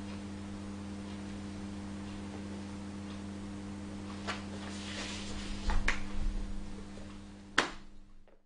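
Steady low electrical hum, broken in the second half by a few sharp clicks and a short run of low thumps, then fading out just before the end.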